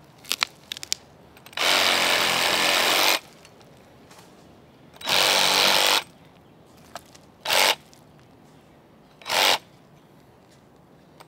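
Cordless reciprocating saw cutting through roots in soil, run in four bursts: two longer runs of about a second and a half and a second, then two short blips. A few light clicks come in the first second.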